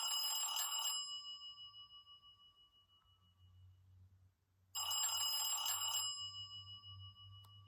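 Bell-like ringtone from a Samsung Galaxy Young (Telstra T3020) phone: a single chime that rings and fades out over about four seconds, then sounds again about five seconds in and fades.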